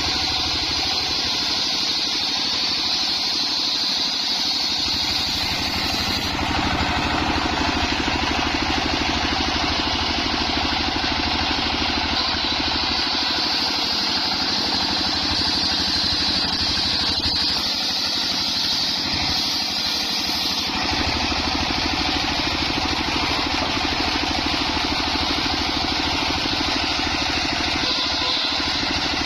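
Homemade engine-driven circular saw running steadily, working through coconut-palm trunk, with a high whine over the motor; the sound shifts in character a couple of times as the load changes.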